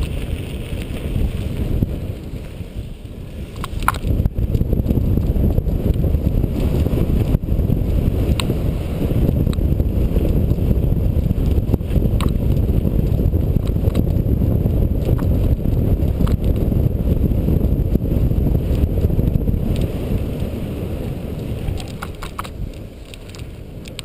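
Cyclocross bike ridden fast over dirt, gravel and grass: steady tyre noise and wind buffeting the camera microphone, with scattered sharp clicks and rattles from the bike. It eases off briefly a few seconds in and again near the end.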